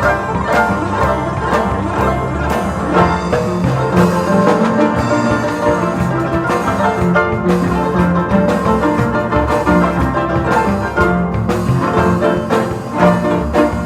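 Paraguayan harps playing a fast plucked tune with a steady, driving pulse.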